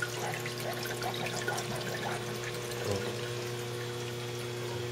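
Water trickling, with a steady low electrical hum underneath.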